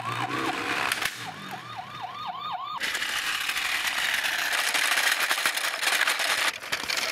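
A police siren sound effect, a rapid yelping wail of about four whoops a second, for the Paw Patrol Chase police car toy. It cuts off about three seconds in, and a loud gritty crunching follows as the toy's plastic wheels roll over gravel.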